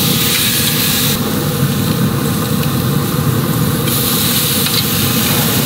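Pellet grill running hot: a steady drone from its fire and fan, with steaks sizzling on the hot grates. The sizzle hiss comes up stronger at the start and again about four seconds in.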